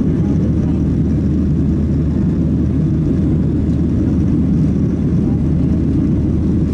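Steady, deep cabin noise of a Boeing 737-700 in flight just after takeoff, heard from a seat over the wing: its CFM56-7B jet engines and the air rushing past the fuselage.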